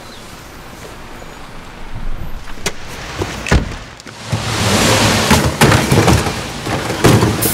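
Wet street and traffic noise with a sharp knock about three and a half seconds in, then a vehicle's engine running louder, with knocks as plastic wheelie bins tip over.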